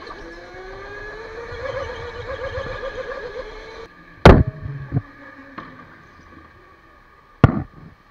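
Electric go-kart motor whining and rising in pitch with a warbling wobble as the kart accelerates. After a sudden change in the sound, a steadier faint whine is broken by two loud, sharp knocks about three seconds apart.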